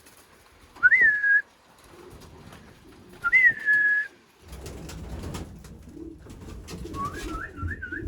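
Clear whistled notes: a single note that rises and then slides down, about a second in and again about three seconds in, then a quick run of short rising notes near the end. Low rustling and rumbling noise sets in about halfway through.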